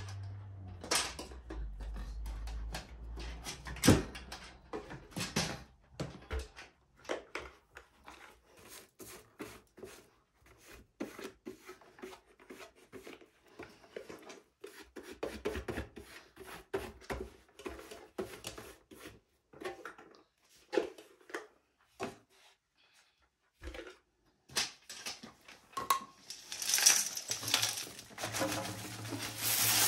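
A string of irregular light clicks and knocks, like hard objects being handled. A louder steady hiss with a low hum comes in near the end.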